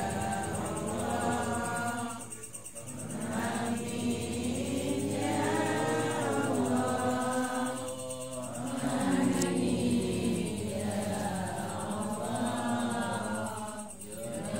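Muslim congregation chanting prayers together in unison, in long sung phrases broken by short pauses for breath about every five to six seconds.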